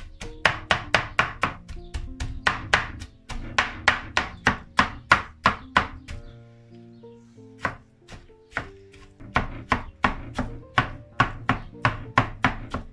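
Large kitchen knife chopping cooked aubergine on a cutting board, mincing it toward a paste: quick, even strokes about four a second, with a short pause about six seconds in before it goes on.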